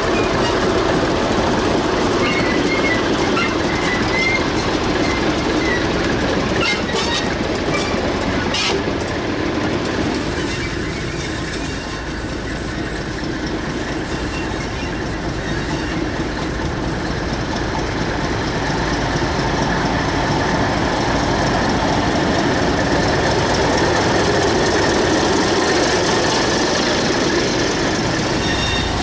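Diesel locomotive engine running steadily as two coupled English Electric diesel locomotives roll slowly along the track. Wheels click on the rails a cluster of times about a quarter of the way in.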